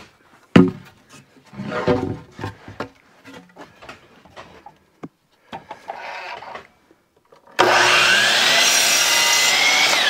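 Wooden boards knocked and shifted about on a miter-saw table, then a DeWalt sliding compound miter saw's motor starts suddenly about three-quarters of the way through. It spins up to a steady high whine and cuts a 30-degree angle across the end of a wooden batten.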